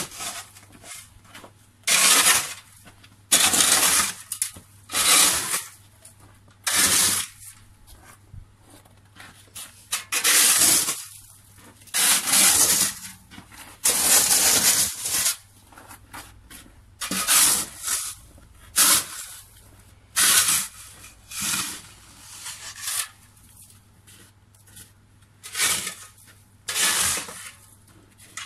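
Snow shovel scraping through snow over a path, in repeated strokes that each last under a second, at uneven gaps of one to three seconds.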